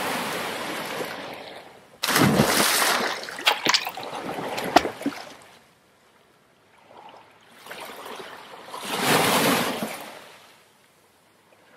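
Water lapping and splashing against a boat's hull in three swells, with a few sharp clicks around the middle.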